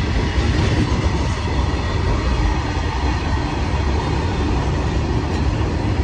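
Train running along the track: a steady, loud low rumble of wagons and wheels on the rails.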